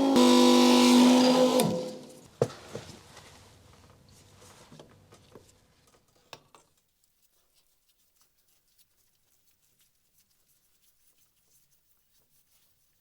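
A machine running with a steady whine stops about two seconds in, spinning down quickly, followed by a few knocks and clicks that die away into near silence.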